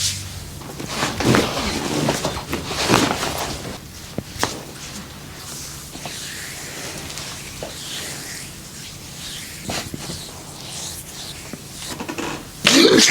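Massage on bare skin: hands rubbing and pressing in irregular strokes, with a few sharp clicks. A louder rushing noise starts near the end.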